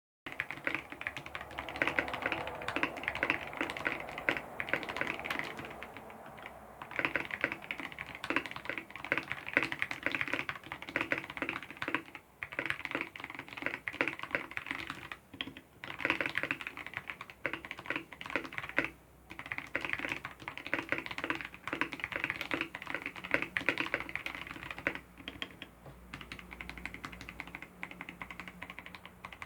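Typing on a mechanical keyboard with tactile switches: fast runs of clacky keystrokes, broken by a few short pauses.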